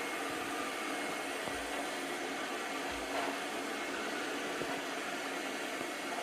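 Light 'N' Easy robot vacuum's suction motor running: a steady whirring hiss with a few steady hum tones over it.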